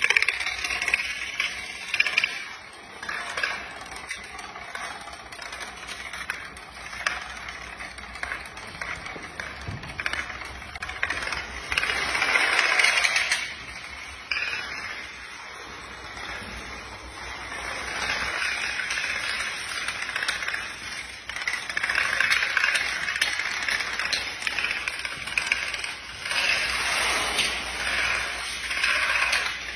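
Long runs of playing cards set on edge toppling one after another like dominoes: a continuous dense clatter of fine card-on-card clicks that swells louder several times as more lines fall at once.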